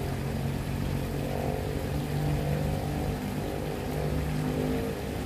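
A motor running steadily, a constant low hum with a few steady pitched tones.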